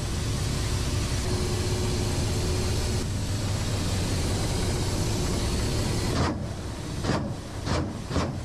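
Attack helicopter's rotor and turbine noise heard inside the cockpit: a steady, dense rush with a faint steady hum in the first three seconds. About six seconds in, a run of sharp, irregular bursts starts, roughly two a second.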